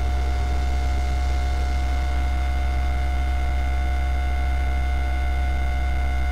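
A steady, unchanging hum with a faint hiss and a few constant tones over it.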